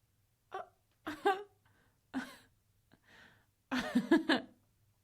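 A woman laughing in short separate bursts of chuckles and breaths, the loudest burst about four seconds in.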